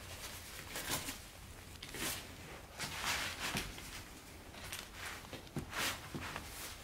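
Rustling and light knocks from handling a camping cot's fabric and its metal end bar as the bar is fitted into place, in a few short, irregular bursts.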